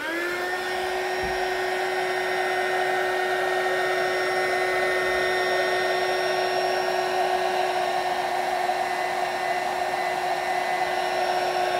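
Handheld hot-air dryer running, used to dry wet paint and Mod Podge on craft pieces. It starts up at the very beginning, its whine rising briefly in pitch, then blows steadily.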